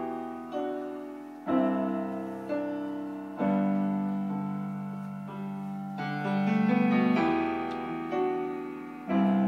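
Piano playing slow chords with a melody on top, a new chord struck roughly once a second and left to ring and fade before the next.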